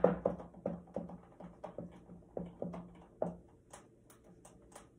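Dry-erase marker writing on a whiteboard: a run of short squeaky strokes as letters are drawn, then a few quick, lighter scratchy strokes near the end.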